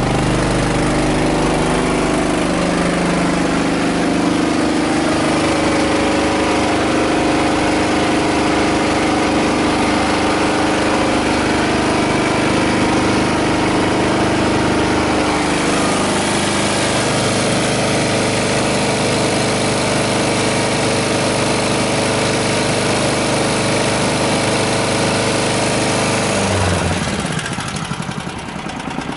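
A fire engine's motor running steadily while it supplies the hose, settling to a lower pitch about halfway through and dropping again near the end.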